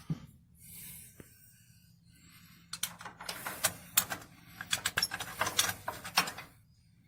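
A rapid, irregular run of clicks and knocks, hard objects being handled and knocked together, starting about three seconds in and lasting some three to four seconds.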